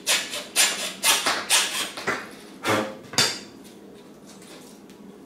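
Hacksaw cutting a small notch into the end of Schedule 40 PVC electrical conduit, about two strokes a second, stopping a little over three seconds in.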